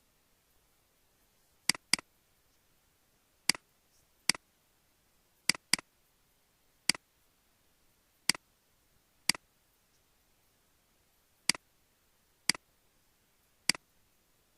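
Computer mouse clicking: about a dozen sharp single clicks spaced one to two seconds apart, with two quick pairs like double-clicks, over a quiet background.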